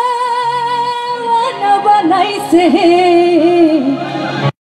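A singer holding long, wavering notes over instrumental accompaniment with a steady low bass line; the sound cuts out abruptly near the end.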